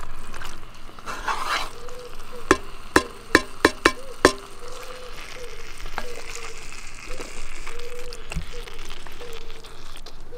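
Chicken and curry paste sizzling in a cast-iron Dutch oven over hot charcoal while a wooden spatula stirs and scrapes through it. A quick run of sharp knocks against the pot comes a few seconds in, and another about six seconds in.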